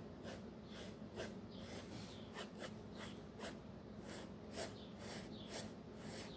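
Mechanical pencil scratching on sketchbook paper in short, faint strokes, about two a second.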